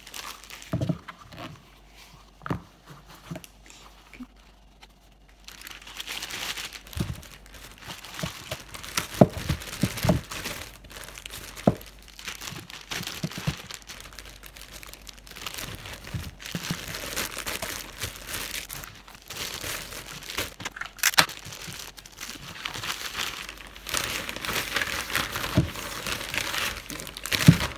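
Thin plastic crinkling and rustling as a pair of shoes is wrapped in a clear plastic bag and put into a plastic courier satchel, with scattered sharp crackles. The first few seconds hold only a few soft knocks of handling before the rustling starts.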